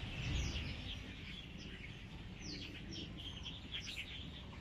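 Birds chirping in the trees: many short, quick notes that fall in pitch, over a steady low background rumble.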